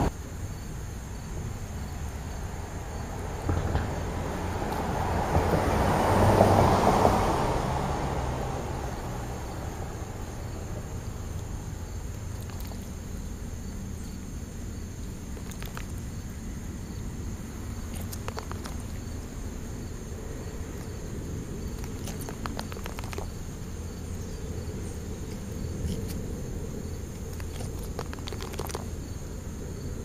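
Outdoor ambience with a steady low rumble and faint insect chirping. About six seconds in, a vehicle passes by, its noise swelling and then fading over several seconds.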